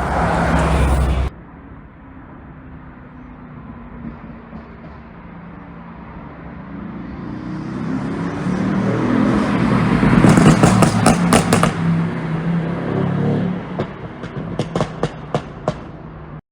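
Mercedes-AMG GT C Roadster's twin-turbo V8 exhaust: loud running drops away suddenly about a second in, then the engine builds up again. Around ten seconds in a rapid string of crackles and pops sounds as the revs fall off, and a few more scattered pops come near the end. This is the overrun pops and crackles of a tuned ECU's pop map.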